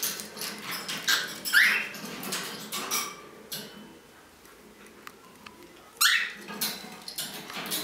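Green-naped lorikeet giving two short rising squawks, one about a second and a half in and one near the end, amid clicking and rattling as it chews and handles a plastic toy with rings.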